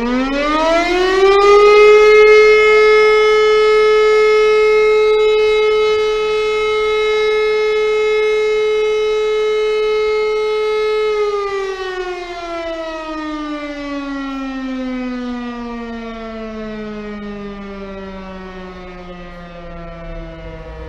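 E57 electromechanical motor siren spinning up to a steady wail in about two seconds and holding it for about nine seconds. It then winds down in a long falling glide. This is one blast of the fire-alarm signal (Feueralarm), sounded as a test.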